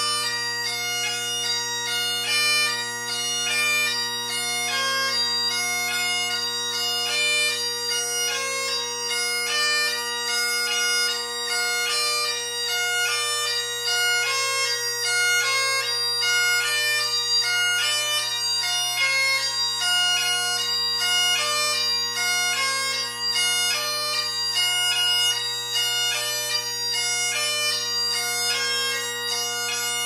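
Great Highland bagpipe playing piobaireachd, with the doubling of a variation under way. Three drones hold a steady chord while the chanter runs a quick stream of short notes with grace-note embellishments.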